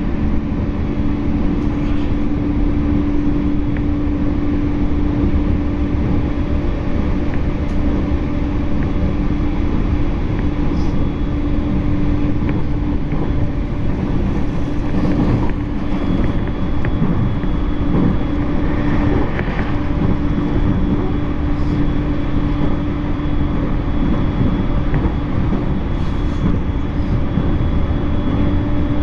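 E231-series electric train running at steady speed, heard from inside the carriage: a continuous rumble of wheels on rail with a steady hum that holds one pitch throughout.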